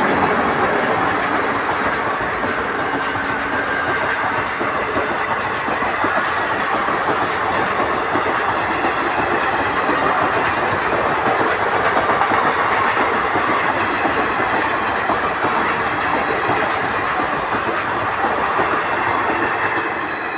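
Passenger train coaches running past on the adjacent track: a steady noise of steel wheels on rail throughout, dying away near the end as the last coach goes by.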